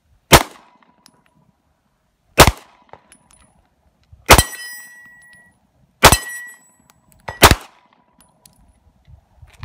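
Five pistol shots about two seconds apart, each answered by AR500 steel targets ringing as they are hit; the third and fourth hits ring longest with a clear high tone.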